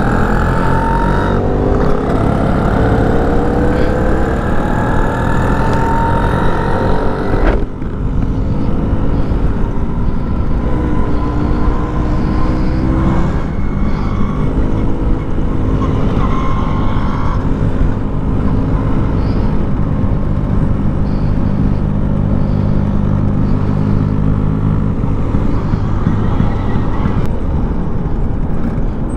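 Vintage scooter engine running under way, its pitch climbing steadily as it accelerates, with an abrupt break about seven and a half seconds in; after that it runs at steadier speeds, its pitch stepping up and down as it changes gear.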